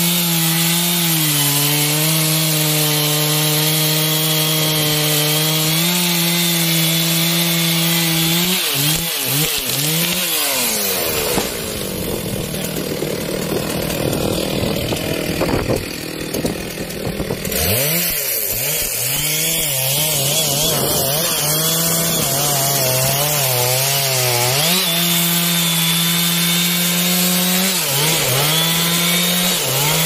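Large Stihl two-stroke chainsaw cutting through a trembesi trunk at high revs, its pitch wavering as the bar loads and frees up. About halfway the engine tone gives way to several seconds of loud rushing noise, then the saw cuts steadily again.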